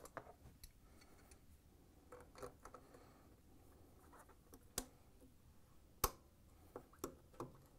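Faint handling sounds of a washer's rubber tub outlet hose and its clamp being worked with pliers: soft rustling, then a few sharp clicks, the loudest about five and six seconds in, with a small cluster near the end.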